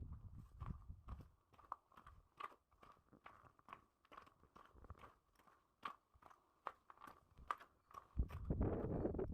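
Footsteps crunching on packed snow at a steady walking pace, about two to three steps a second. Near the end, a gust of wind buffets the microphone with a loud low rush.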